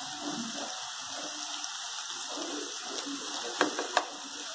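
Kadai paneer gravy sizzling in the pan as it is stirred with a wooden spatula: a steady hiss with two sharp taps near the end.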